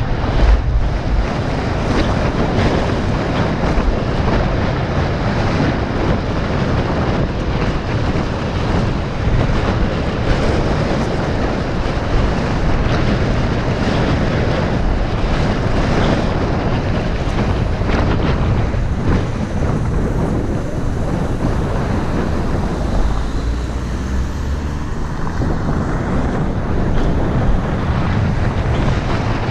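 Wind buffeting the microphone on a fast ride on a Zero 10X electric scooter. It is loud and steady, with road noise underneath.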